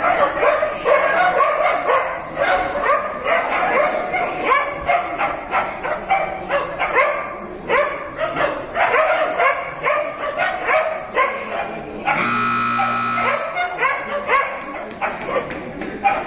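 A dog barking repeatedly, several short barks a second. About twelve seconds in, an electric buzzer sounds steadily for over a second.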